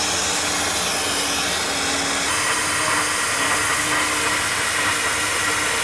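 SuperFlow flow bench's blower motors running steadily, drawing air through the exhaust port of a ported 12-valve Cummins cylinder head with a loud, even rush. This is a flow test of the exhaust port, which reads about 221 CFM.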